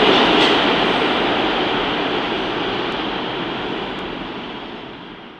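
New York City subway train running on a far track through an underground station, its steady rushing rail noise fading away as it moves off.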